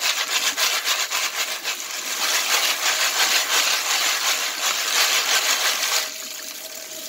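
Tap water running onto a pile of jacketed rifle bullets in a plastic colander while the colander is shaken, the bullets jostling under the stream as the excess wet moly is rinsed off. The sound drops to a softer running-water hiss about six seconds in.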